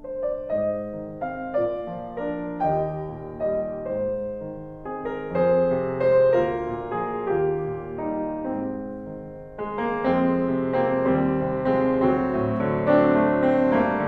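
Solo piano playing a slow, gentle melody over sustained chords. The playing grows louder and fuller about ten seconds in.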